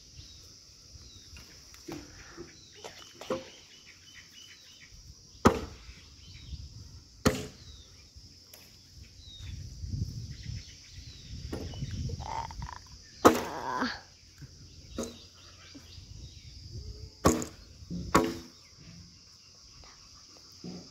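Axe blows chopping bamboo on the ground: a handful of sharp strikes at uneven intervals, over a steady high buzz of insects.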